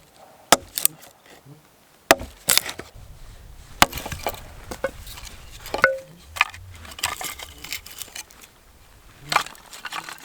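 Dry white pine twigs being snapped by hand: a string of sharp cracks at irregular intervals, with lighter crackling between.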